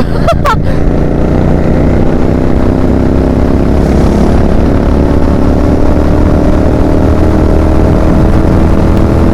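Royal Enfield Continental GT 650's parallel-twin engine running steadily under throttle at road speed, its pitch rising slowly as the bike gathers speed.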